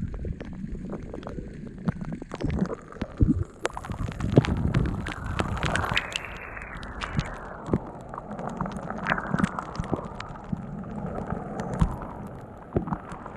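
Rainwater splashing and drops pattering on and around the GoPro, with many sharp taps on the camera and low rumbling on the microphone; a broader rush of water swells in the middle.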